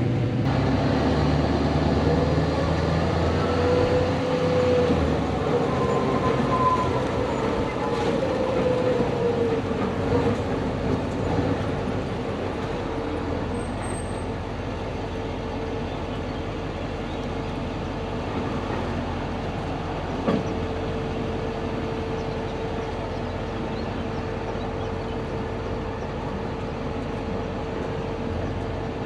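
Rollback tow truck driving, its engine and road noise heard from inside the cab. The engine pitch rises and falls over the first several seconds, then settles into a steady hum, with a single sharp knock about twenty seconds in.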